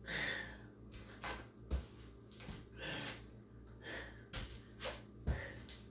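A woman breathing hard under exertion, with short forceful breaths about once a second, and two soft thuds, one about 2 seconds in and one near the end.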